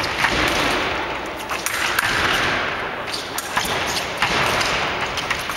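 Fencers' feet stamping and thudding on the piste during a sabre attack, with sharp clicks of blades meeting, over a broad rushing noise in a large hall.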